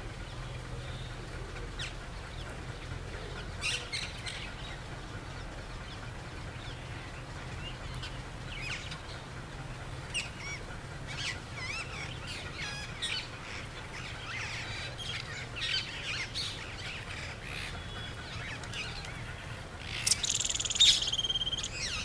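Rose-ringed parakeets calling in short, scattered chirps and squawks, with a louder run of calls about two seconds before the end. A faint low hum sits underneath.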